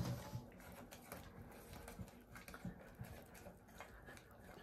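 Green silicone whisk stirring a thick toffee, butter and ground-walnut mixture in a stainless steel saucepan: faint, irregular clicks and soft scraping as it works against the pan.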